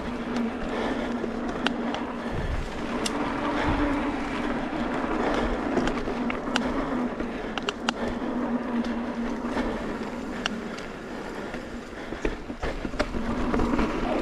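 29er mountain bike rolling fast downhill on dirt singletrack: tyre noise on dirt with sharp clicks and knocks as the bike rattles over rocks. A steady hum runs underneath and drops away about ten seconds in.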